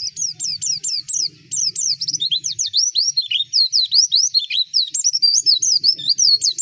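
White-eye (pleci) singing a fast, unbroken warble of rapid high chirps and down-slurred whistles, with a brief break about a second in and lower, dipping notes in the middle.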